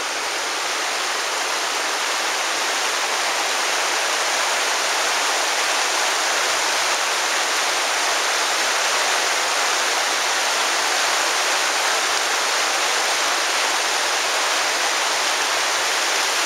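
The Virgin River flowing: a steady rush of running water with no breaks.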